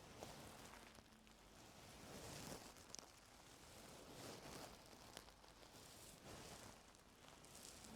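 Faint close-up scratching and rustling of ear-cleaning tools working inside an ear canal, in soft irregular strokes with a few small clicks.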